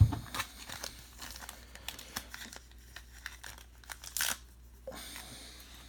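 A thump, then a trading card pack's foil wrapper crinkling and tearing as it is opened by hand, with a louder crackle about four seconds in.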